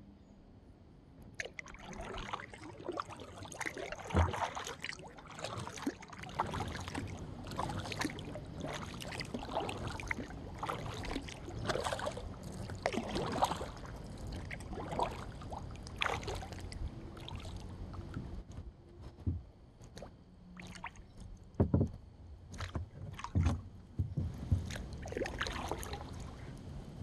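Kayak paddling on a calm river: paddle blades splashing and dripping water in an irregular run of strokes, starting after a second or so, with a few dull thumps, the loudest about four seconds in and twice later on.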